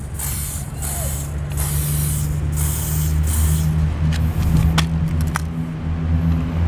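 Aerosol spray-paint can spraying in repeated short bursts of hiss while filling in a wall, with a few sharp clicks and a low steady hum underneath.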